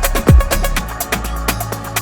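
Background electronic dance music with a steady beat: a kick drum about twice a second that drops out about half a second in, leaving quick hi-hat ticks over a held bass note.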